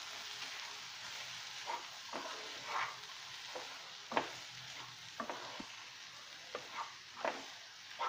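Soaked fenugreek seeds frying in a nonstick pan and stirred with a wooden spatula: a steady faint sizzle under irregular short scrapes of the spatula against the pan.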